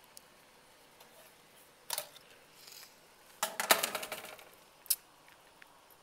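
Sheet-metal Duro Dyne duct access door being unlatched and pulled off: a sharp click about two seconds in, then a burst of metallic clinking and rattling around three and a half to four seconds, and one more click near five seconds.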